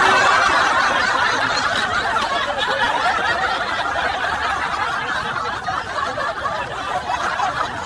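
A group of people laughing together, a dense burst of laughter that slowly dies down.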